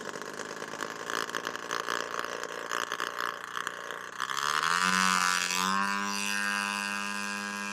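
Small propeller-driven drone's piston engine running just after being hand-started. It runs rough at first, then rises in pitch about four seconds in and settles at a steady high speed.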